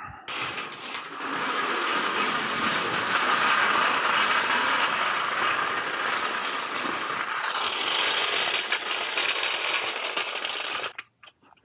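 Steel motorcycle lift rolled on its small casters across a rough asphalt driveway: a continuous metallic rattle and grinding that stops suddenly near the end.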